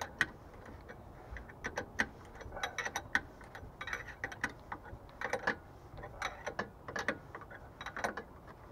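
Ratchet wrench clicking in short, irregular runs as bolts are turned, with scattered metal clicks from the tools.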